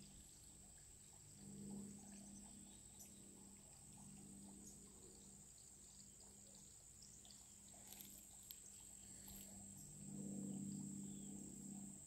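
Faint outdoor summer ambience: a steady high-pitched insect drone, with a low hum that swells up twice, briefly early and again near the end.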